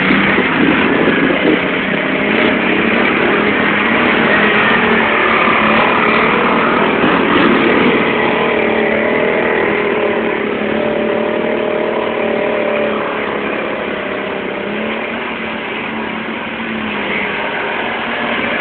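Several ATV engines running through a mud hole, revving up and down as the quads churn through the mud, so the engine pitch keeps rising and falling.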